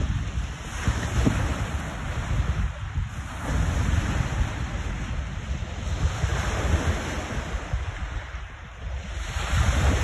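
Lake waves breaking on the shore, swelling in a surge every two to three seconds, with strong wind buffeting the microphone as a steady low rumble.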